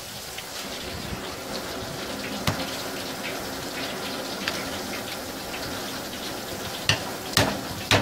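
Tap water running steadily from a hose sprayer onto a red sea bream's head and a plastic cutting board as the head is rinsed and worked with a knife. Sharp knocks come once about two and a half seconds in and three times near the end.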